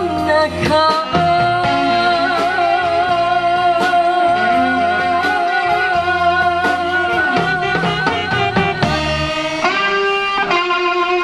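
Live pop band playing: electric guitar, bass and drums, with a long wavering melody line held over them for most of the passage and a change of chord near the end.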